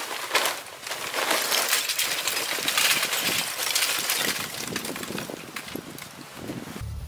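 Charcoal poured from a paper sack into a metal chimney starter: a dense, continuous clatter and clinking of lumps striking the metal can and each other. It cuts off abruptly near the end.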